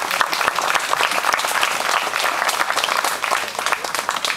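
Crowd of spectators applauding, many hands clapping together steadily.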